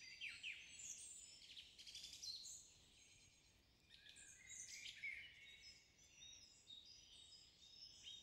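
Faint birdsong: several small birds chirping and trilling at once, with many overlapping high chirps and short falling notes, easing off briefly about three seconds in.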